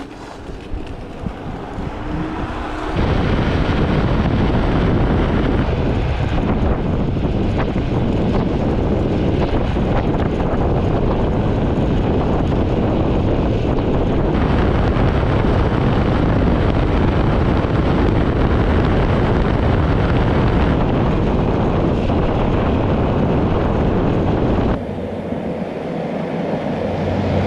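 Wind rushing over the microphone of a camera mounted on an electric scooter at full speed: a loud, steady rush that builds over the first three seconds as the scooter accelerates. Near the end it cuts off abruptly to a quieter roadside sound that grows louder.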